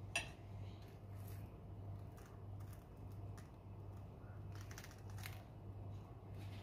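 A metal spoon clinks once against a ceramic soup bowl just after the start, then faint crackles and rustles come as a slice of crusty toast is picked up and handled, over a low steady hum.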